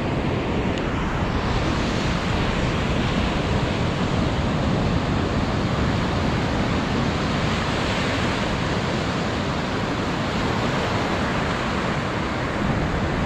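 Ocean surf breaking and washing up the beach: a steady rushing noise that holds even throughout.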